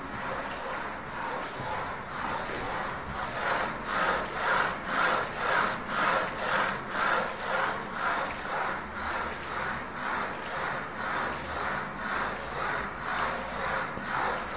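Wave energy converter prototype's float mechanism working as it rides the waves: its rods slide up and down through their guides with an even, sawing-like rubbing of about two strokes a second, which grows louder about three to four seconds in.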